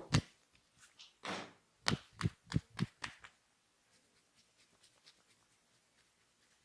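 Sharp hand slaps of a percussive body massage: a smack at the start, a short rubbing swish, then five quick slaps at about three a second.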